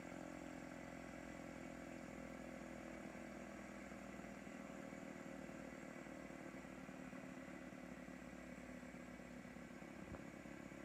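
Fidget spinner spinning freely on its bearing: a faint, steady whirring hum that holds its pitch.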